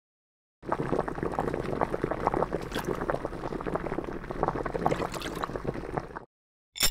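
Water bubbling at a rolling boil in a pot, a dense stream of small pops for about six seconds that stops suddenly. A short sharp sound follows near the end.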